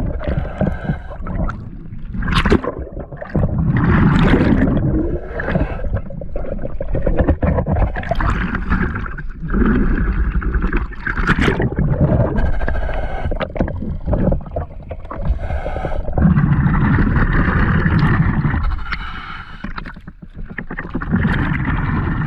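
Water sloshing and gurgling around a camera held under water beside a paddled hull, heard muffled as if through the housing. Paddle strokes churn the water in uneven surges.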